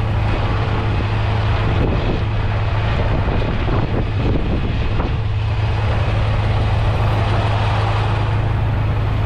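A vehicle engine running steadily at idle: a constant low hum over a noisy hiss.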